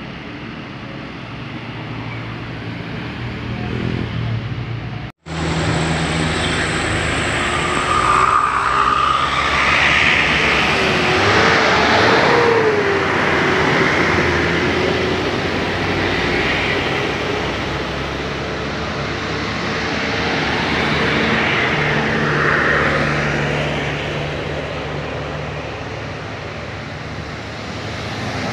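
Buses and road traffic: heavy engines running with road noise, swelling and fading as vehicles pass, with a sudden break about five seconds in.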